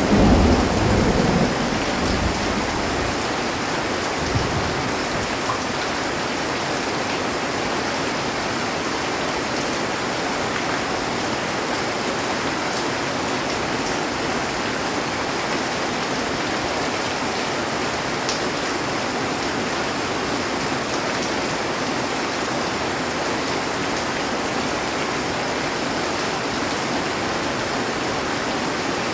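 Heavy rain falling steadily on a metal roof, with the tail of a low thunder rumble dying away in the first few seconds.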